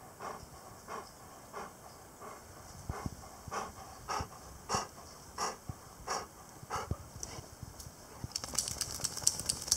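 English cream golden retriever panting steadily, about one and a half breaths a second. Near the end it puts its nose to the ground with a quick run of sniffs.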